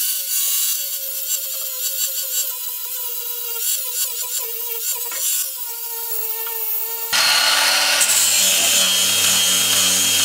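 Cordless angle grinder grinding off old body filler on a steel bus panel, its whine wavering under load. About seven seconds in the sound switches suddenly to a louder, steadier run with a low motor hum.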